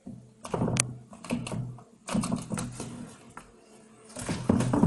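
A strip of paper rustling and tearing in short bursts, about three, as a cat claws at it and pulls it through a slot in a plastic tub.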